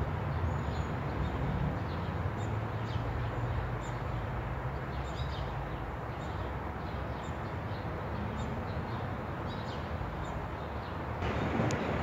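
Outdoor ambience: a steady low rumble with scattered faint bird chirps.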